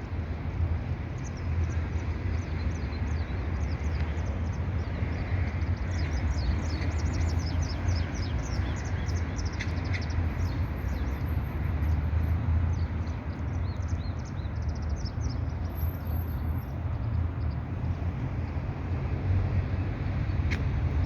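Small birds chirping in many quick, falling notes, busiest near the middle and thinning out toward the end, over a steady low rumble.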